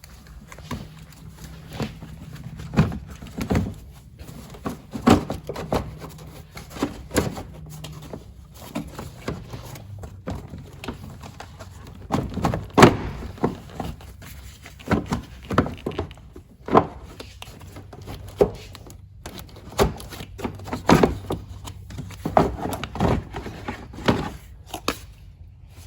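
Irregular knocks, clicks and clanks of hand tools and metal parts being handled while an engine's top end is taken apart, over a faint low steady hum.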